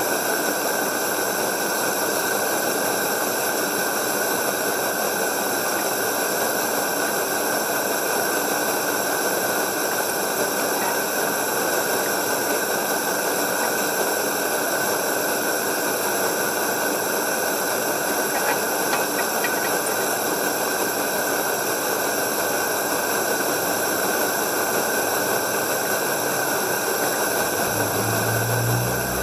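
Coleman 200A pressurized white-gas lantern burning with a steady hiss. A low rumble comes in near the end.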